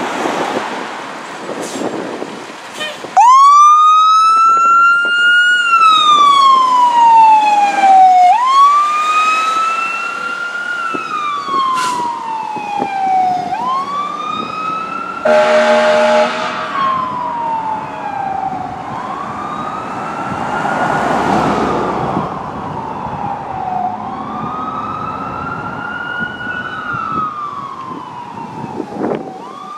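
Fire engine siren wailing on a 2020 Spartan MetroStar pumper. It cuts in loudly about three seconds in, and each cycle rises quickly and then falls slowly, about every five seconds. About halfway through, a horn blasts for about a second.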